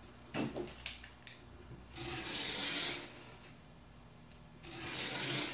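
Cardboard being scraped along a fold line: a few light knocks and clicks, then two long scraping strokes about a second each, the second near the end.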